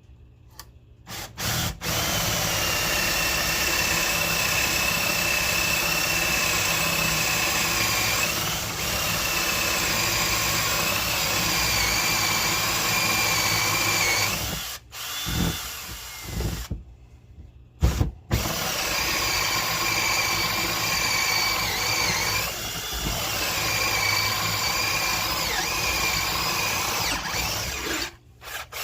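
Power drill boring a 7/8-inch hole through hardwood with a Forstner bit: a steady motor whine in two long runs, with a short break of stops and restarts about halfway through.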